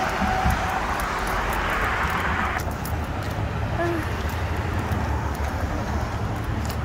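Road traffic at an intersection: cars and a city bus passing with a steady engine rumble and tyre hiss. The hiss drops off sharply about two and a half seconds in, leaving a lower steady traffic rumble.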